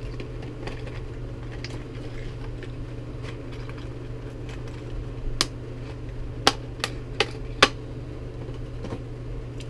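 Hard clear plastic lure box being handled and opened: a handful of sharp plastic clicks and snaps, most of them in the second half, over a steady low hum.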